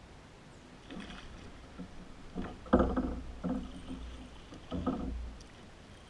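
Paddles working a canoe or kayak through water: several uneven strokes and splashes, the loudest about three seconds in, with a low rumble under them.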